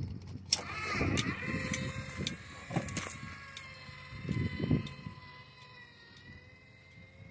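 Relay clicks as the crossing gate's control circuit is switched, then the linear actuator in the half-scale Griswold gate mechanism starts about half a second in and runs with a steady electric whine as it lowers the gate arm. There are a few sharp clicks and knocks in the first three seconds, and low thumps throughout.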